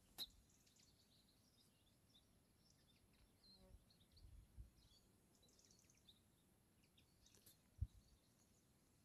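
Near-silent outdoor ambience with faint, scattered chirps of small birds, a sharp click just after the start and a short low thump near the end.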